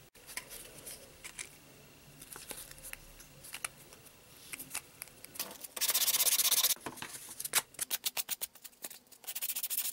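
Sandpaper rubbed on the cut edge of a piece of chipboard: one longer stroke about six seconds in, then a run of quick short strokes back and forth near the end. Before it come a few small clicks of scissors snipping and the board being handled.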